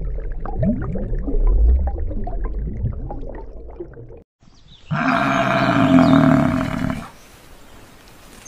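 A water buffalo bellowing once, a long, loud call of about two seconds that starts about five seconds in. Before it comes about four seconds of low rumbling with scattered short squeaks and clicks.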